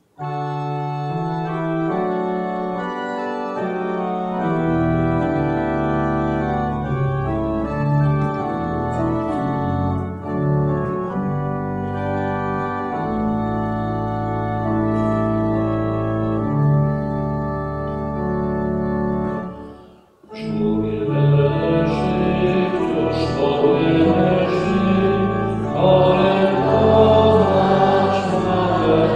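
Church organ playing sustained chords. It breaks off briefly about twenty seconds in; when it resumes, singing joins the organ.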